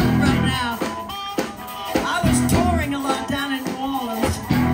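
Live blues band playing: amplified harmonica, electric guitar, bass guitar and drums, with a woman singing into a microphone.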